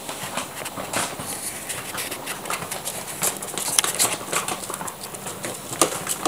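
Paws and claws of five-week-old Labrador puppies clicking and pattering irregularly on a tiled floor as they scamper about.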